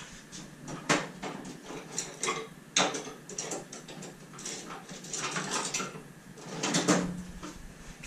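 Scattered knocks and clatters of hard objects being picked up, moved and set down, as when rummaging among tools. The sharpest clacks come about a second in, near the middle and near the end.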